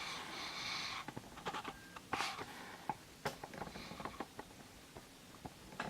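A shoebox and its packaging being handled: a rustle lasting about a second, then scattered light taps and soft rustles.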